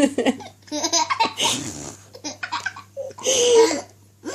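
Young girls laughing and giggling in repeated bursts, mixed with fart noises made by blowing raspberries with the lips against bare skin.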